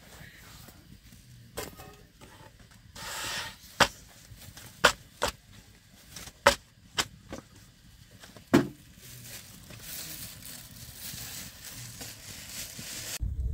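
Thin wooden rolling pin knocking against a wooden dough board, with the thin flatbread dough slapping as it is rolled out and lifted: a series of sharp knocks a second or so apart, stopping after about nine seconds.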